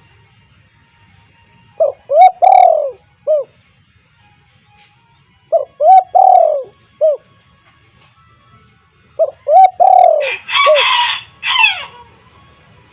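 Spotted dove (tekukur) singing loudly: three cooing phrases a few seconds apart, each of short notes around one longer drawn-out coo. A rougher, noisier call overlaps the last phrase near the end.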